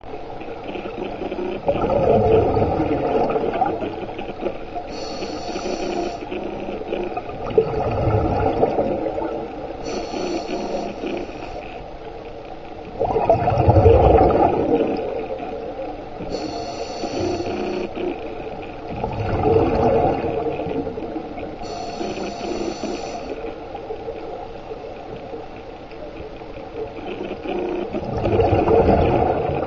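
Scuba diver breathing through a regulator underwater: a bubbling rumble of exhaled air about every six seconds, with a short hiss of inhalation in between.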